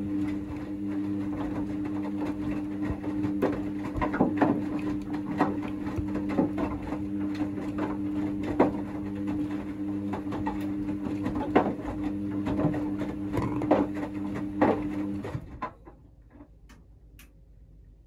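Hoover DXA front-loading washing machine tumbling its second rinse: a steady motor hum with water sloshing and wet laundry flopping in the drum. About three-quarters of the way through, the motor stops and the drum falls quiet.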